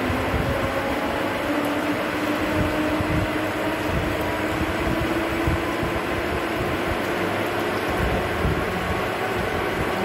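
Metal lathe cutting along a long, slender threaded metal shaft held between chuck and tailstock centre. Steady machine noise with a tone that slowly rises in pitch.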